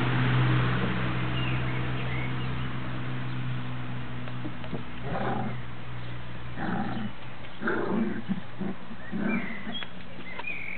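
American Staffordshire terrier puppies play-growling and grunting at each other, about five short bursts in the second half.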